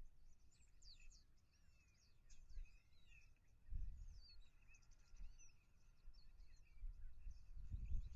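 A busy chorus of small birds chirping and calling, made of many short high chirps and swooping whistles, with low rumbles about four seconds in and again near the end.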